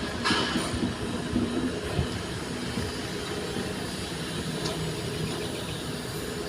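Steady heavy mechanical rumble, with a short burst of hiss about half a second in.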